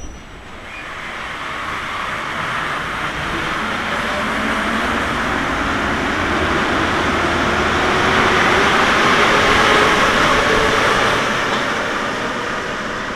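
Paris Métro MP 73 rubber-tyred train pulling out of the station: a rushing noise that builds as the train gathers speed, with a faint rising whine underneath. It peaks about ten seconds in, then fades as the train draws away.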